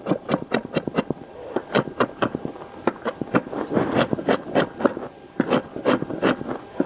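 Kitchen knife chopping red onion on a wooden cutting board: quick, uneven knocks of the blade on the board, about four a second.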